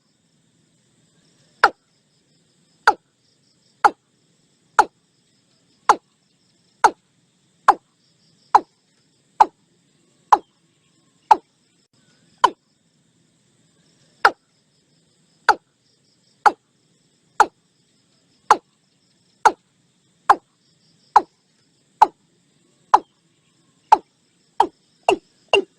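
Watercock (Gallicrex cinerea) calling: a series of short notes at about one a second, with a gap of nearly two seconds about halfway through, speeding up to about two a second near the end.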